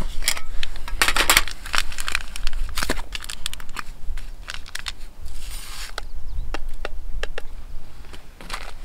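Plastic food packaging crinkling and rustling as it is handled, in irregular bursts with a short lull about halfway through.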